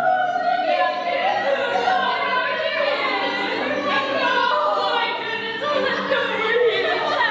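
Classical operatic singing with several voices, sung continuously with gliding, held notes.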